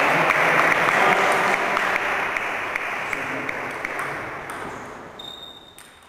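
Small audience applauding in a hall, the clapping steadily fading out.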